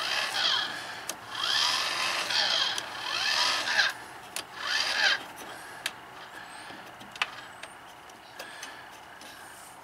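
MaxxAir roof vent fan lid being wound shut by hand with its black crank knob, its motor-drive gearing grinding and whirring in several turns over about five seconds, followed by a few light clicks.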